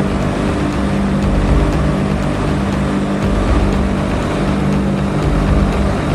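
Aircraft engines droning steadily: a loud, unbroken drone with a steady low hum tone and an uneven low throb underneath.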